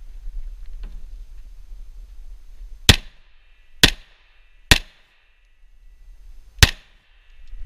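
Four shots from a semi-automatic pistol fired close to the microphone: three about a second apart, then a fourth about two seconds later, each with a short ring after it.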